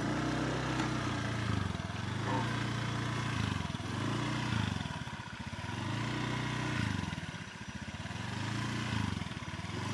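Small motorbike engine running at low speed, its note rising and falling every second or two as the throttle is eased on and off.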